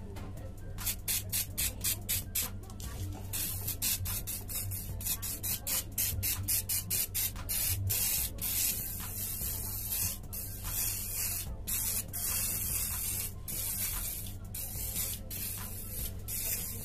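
Aerosol can of WD-40 spraying into a power amplifier mixer to clean it: a run of short quick puffs, about four a second, then longer bursts of hiss broken by brief pauses.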